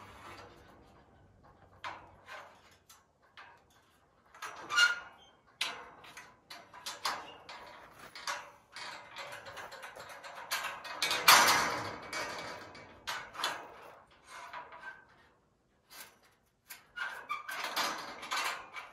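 Irregular knocks, clatter and scraping from hand work on building parts, with a louder clatter about eleven seconds in.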